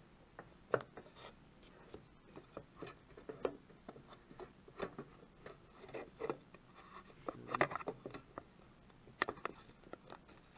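Scattered light knocks, taps and scrapes at an irregular pace, some sharper than others: handling noise from a camera being moved and repositioned.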